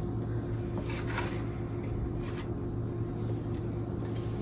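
A steady low electrical hum with a thin steady tone. A metal fork gives a few faint clicks against a china plate, about a second in and again past two seconds.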